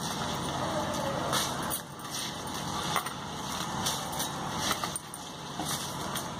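Spiced water boiling and bubbling in an electric rice cooker pot while soaked rice is dropped in by hand, with glass bangles on the wrist clinking now and then.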